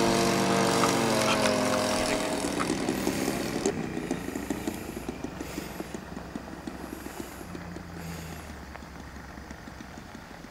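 Model aeroplane engine throttling back, its pitch falling, then running at a low, uneven idle with irregular firing pulses and fading away as the model comes down to land.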